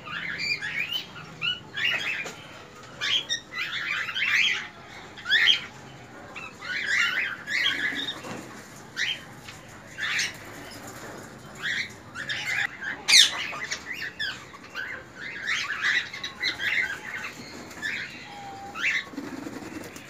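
A colony of cockatiels calling, with short chirps and squawks coming irregularly, one bird after another.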